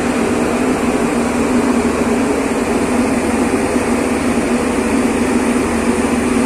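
Steady, loud drone of a car ferry's diesel engines running as the ship gets under way.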